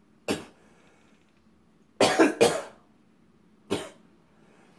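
A person coughing four times: once near the start, twice in quick succession about two seconds in, and once more near the end.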